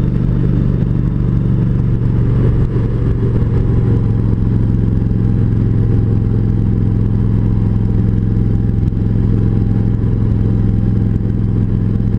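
Kawasaki Voyager 1700's V-twin engine running at a steady pitch while the motorcycle rides along.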